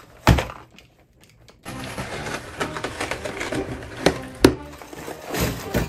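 A cardboard shipping box set down on a cutting mat with a thump, then a utility knife slicing through the box's packing tape and cardboard in a run of scraping, tearing strokes.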